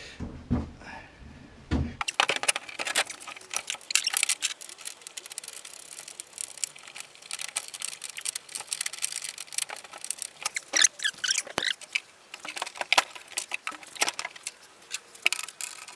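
Irregular metallic clicks, knocks and jangles of hinge hardware being handled as a car door is fitted back onto its hinges.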